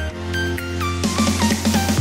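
Background music: a held deep bass under a melody whose notes slide between pitches, with a drum build rising over the second half.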